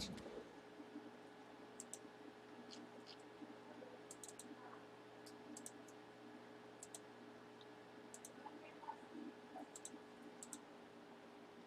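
Faint, scattered sharp clicks, a few at a time at irregular intervals, over a low steady hum.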